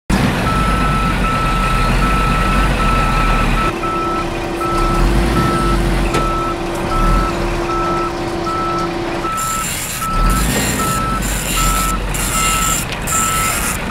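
A truck's reversing alarm beeping in an even, rapid series, about two to three beeps a second, over a low engine rumble. A steady machine hum joins about four seconds in and stops about nine seconds in, after which a hiss comes in with short breaks.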